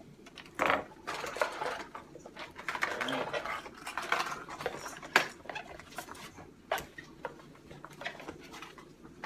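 Plastic lure packaging crinkling and rustling as packs are handled and set down on the table, with a few short sharp clicks.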